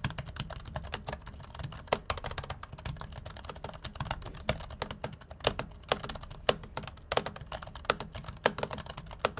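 Fast two-handed typing on a Corsair K100 AIR ultra-thin wireless keyboard with Cherry MX Ultra Low Profile mechanical switches: a dense, uneven patter of short key clicks, with some strikes louder than others. The keyboard is not especially quiet for a low-profile board.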